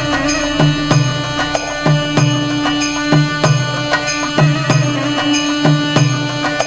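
Instrumental soundtrack music: a steady held drone under a regular beat of low pulses, with sharp percussive strikes and bell-like ringing tones on top.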